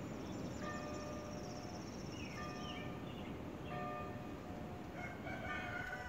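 A church bell being rung, heard from a few houses away, sounding about once a second. Birds chirp over it, and a high trill runs through the first half.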